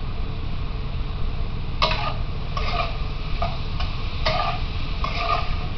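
Metal spatula knocking against a stainless steel wok and its lid: about six separate ringing clanks, starting about two seconds in, over a steady low hum.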